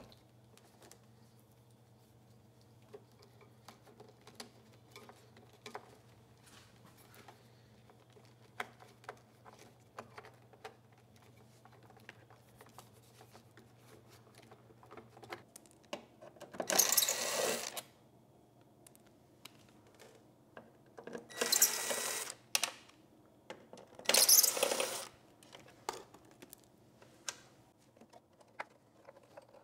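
Small clicks and rustles of hands working wiring and plug connectors inside a generator frame. Three loud rasping sounds of about a second each come in the middle, a few seconds apart.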